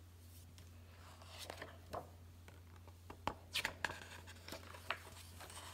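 Hardcover picture book being handled and opened: a series of short taps, paper scrapes and page rustles as the cover is lifted and the first page turned, loudest about three and a half seconds in, over a low steady hum.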